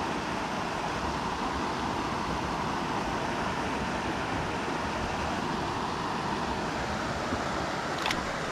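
Steady rush of a shallow, rocky mountain river flowing over stones, with a single sharp click near the end.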